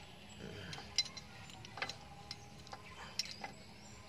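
A few light metallic clicks and ticks at uneven intervals, tools and parts knocking against metal during hub assembly work.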